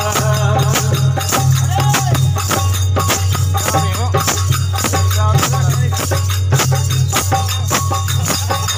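Amplified desi bhajan music in a stretch with no clear singing: steady rhythmic percussion strokes, about three or four a second, with a metallic jingling over a low sustained bass drone.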